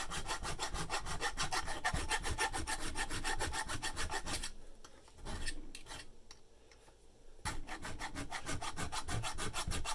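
A hand file rasping back and forth on a metal key blank held in a vise, in quick, even strokes several times a second. The filing stops for about three seconds around the middle, then starts again at the same pace.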